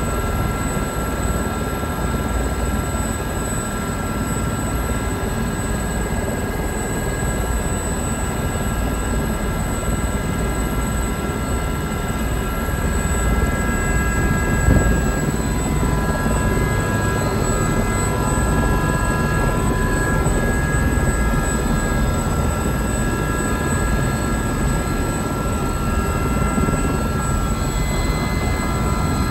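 Aérospatiale Gazelle helicopter running, with a steady high whine over the rotor noise, growing louder about halfway through as it lifts off into a hover.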